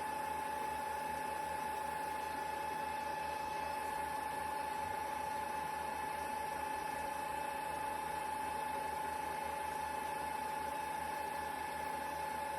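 A steady mechanical hum with a constant high whine, unchanging throughout.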